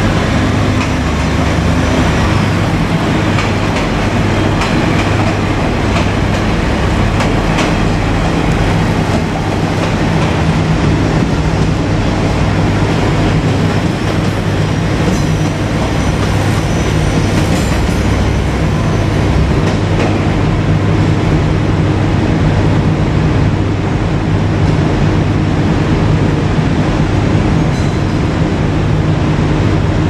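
KiHa 47 diesel railcars running, a steady low engine drone with several even tones under a broad rumble.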